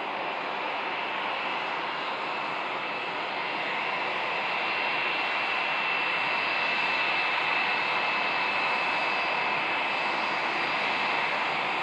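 Airbus A320-232's IAE V2500 turbofan jet engines running at low taxi thrust: a steady rushing hiss with a high whine on top, growing slightly louder about halfway through.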